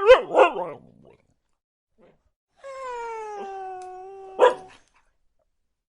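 Husky vocalizing in its 'talking' way: a quick run of short yelping calls that bend in pitch, then a long held call that falls slightly in pitch, cut off by one sharp bark.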